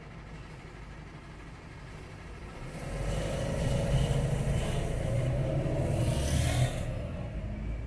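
A car engine hums low while waiting at the lights. About three seconds in, a city bus drives past close alongside and its engine is loud for a few seconds, then falls away fairly sharply near the end.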